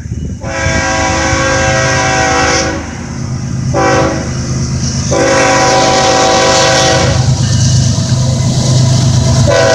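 Freight diesel locomotive air horn blowing for a grade crossing as the train approaches: a long blast of about two seconds, a short one, another long blast, then a further blast starting near the end, over the low rumble of the diesel engines.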